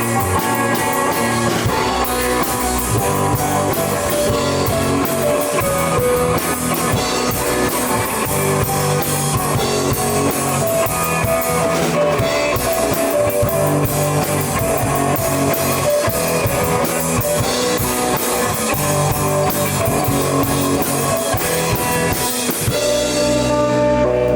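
A live rock band plays an instrumental passage: guitar over a drum kit with steady cymbal strokes, recorded on a camera microphone. Near the end the drums drop out, leaving held guitar notes.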